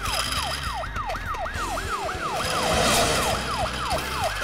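Cartoon ambulance siren in a fast yelp, each note rising then falling, about four a second.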